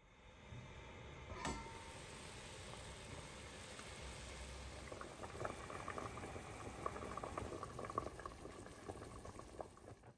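Pot of lentil soup coming to a boil: a steady hiss with bubbles popping, which gets busier about halfway through. A single sharp click comes about a second and a half in.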